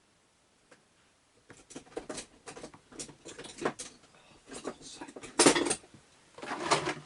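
Rummaging among hand tools for a screwdriver: a run of irregular clattering knocks and clicks of hard objects, the loudest about five and a half seconds in.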